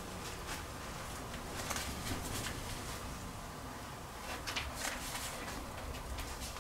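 Faint, irregular crinkles and small taps of foil vapour-barrier tape being handled and pressed onto ceiling insulation boards, in clusters about two seconds in and again past four seconds.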